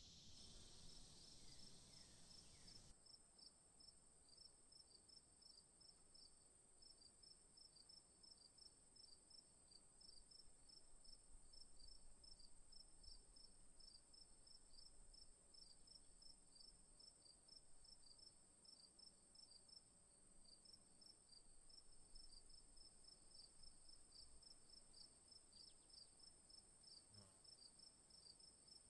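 Faint crickets chirping: a continuous run of quick, even chirps over a steady high-pitched trill. A soft hiss stops abruptly about three seconds in.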